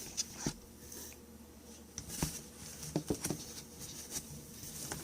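Handling noises: a few scattered short taps and rustles as items and packaging are moved about.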